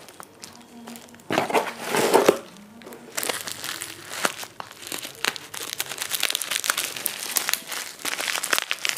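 Plastic bubble wrap crinkling as it is handled, snipped with scissors and pulled open by hand. There are a couple of louder rustles in the first two seconds, then a steady run of small crackles.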